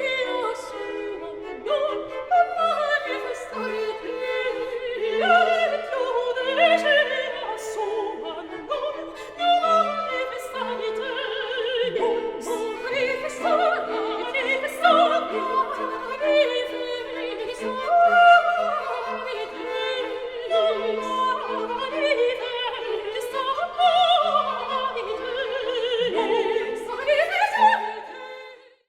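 Operatic singing with orchestral accompaniment, a solo voice with vibrato over sustained string notes, fading out at the end.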